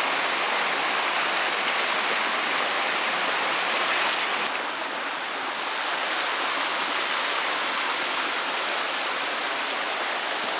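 A rain-swollen creek rushing over rocks: a steady, even rush of water that softens slightly about halfway through, then holds.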